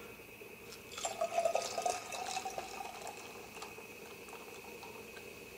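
Wet, close-up eating sounds: crackly smacking and slurping from sucking and chewing a sauce-covered hot wing, for about two seconds starting about a second in. Just afterwards it is called an ASMR spot.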